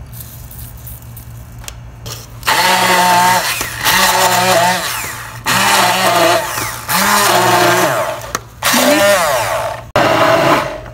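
Hand-held stick blender pulsed in its beaker in six short bursts of a second or so each, starting about two and a half seconds in. The motor whirs up in pitch at the start of each burst as it chops mint, coriander, tomato, onion and green chilli into a green chutney.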